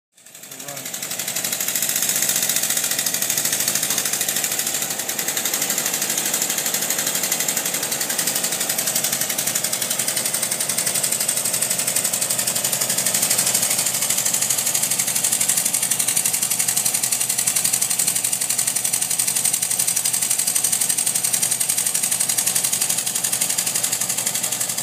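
Working model American LaFrance fire engine's small reciprocating engine running fast and steady, a rapid mechanical chatter over a bright hiss. It builds up over the first couple of seconds.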